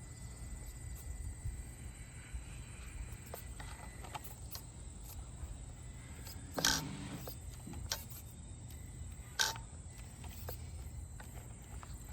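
Traxxas TRX4M RC crawler picking its way over a tricky wooden obstacle: a low steady rumble with a few light knocks and two sharper knocks, the louder about two-thirds of the way through.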